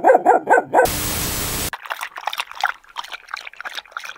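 A dog barking rapidly, cut off under a second in by a brief, even burst of hiss-like noise; then soft, irregular water trickling and lapping, as of a dog drinking from a toilet bowl.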